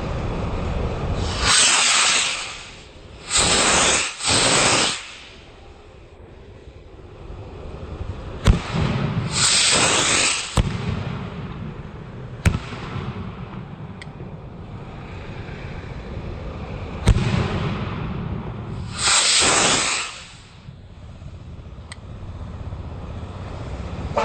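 Eagle Fireworks 'Eye of the Eagle' aerial firework going off: five loud hissing rushes of about a second each, and about five sharp bangs of shells bursting, spaced irregularly.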